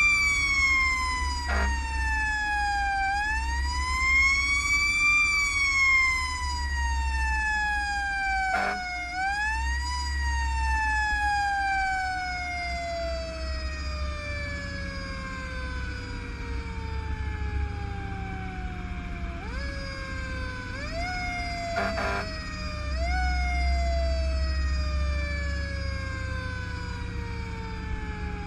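Fire engine siren wailing, its pitch rising and then falling slowly in long downward sweeps, with a few quick short rises near the end, over the low rumble of the truck's engine.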